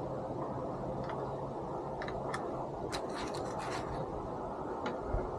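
Light plastic clicks and scrapes as a replacement third brake light assembly is handled and fitted into place, with a quick cluster of clicks about three seconds in, over a steady low background noise.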